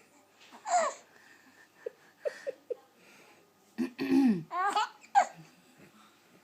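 A sleeping baby laughing: a high squealing laugh about a second in, then a few short soft laugh sounds. About four seconds in comes a low adult cough, and the baby answers at once with more high, bubbling laughter.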